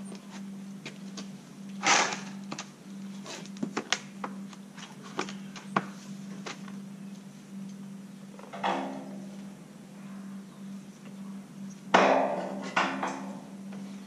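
Knocks and clanks of steel beams and welding gear being handled, over a steady low hum. There is a sharp clatter about two seconds in, and two ringing metal clanks later on; the loudest comes about two seconds before the end.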